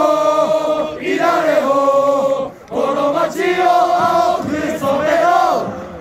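Football supporters singing a chant together, a large crowd of mostly male voices on one tune in long held phrases, with a brief breath about halfway through.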